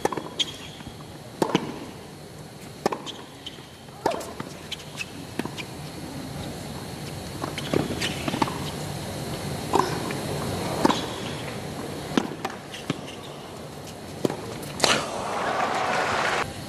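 Tennis rally: sharp racket strikes on the ball, one about every second to second and a half, trading back and forth between the two players. Near the end the strikes stop and the crowd applauds the finished point.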